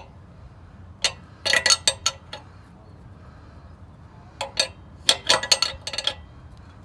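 A wrench tightening a new bank one, sensor two oxygen sensor into the exhaust pipe: sharp metallic clicks and clinks in short quick bursts, one to two seconds in and again from about four and a half to six seconds in.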